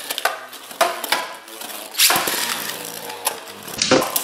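Beyblade Burst spinning tops whirring and rattling on a plastic stadium floor. About two seconds in, a second top is ripped from its launcher into the stadium with a sharp zip and clatter.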